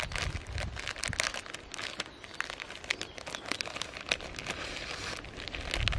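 Plastic instant-noodle packet crinkling and rustling in the hands as the dried ramen block is worked out of the bag, a dense run of irregular crackles.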